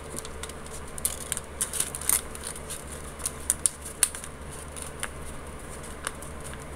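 A sheet of paper crinkling and crackling under the fingers as it is rolled tightly into a thin tube, in irregular small crackles and clicks.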